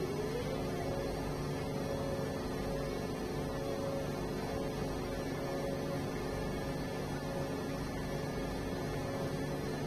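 Steady hum with several steady tones from a moving-head stage light's cooling fan and motors. Right at the start a whine rises in pitch and then holds steady as the head moves.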